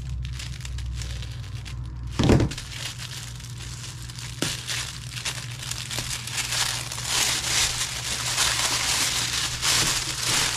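Tissue paper wrapping crinkling and rustling as it is peeled open and unfolded around a box, growing louder and busier in the second half. There is one thump about two seconds in.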